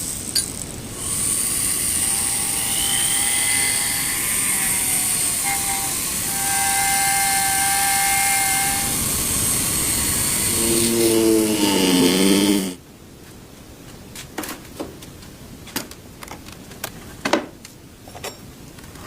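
A power tool runs with a loud, steady hiss and a whine that wavers in pitch. It stops abruptly about two thirds of the way through, and then come scattered light clicks and taps.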